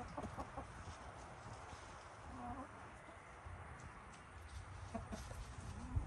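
Chickens clucking softly now and then, over a faint low rumble.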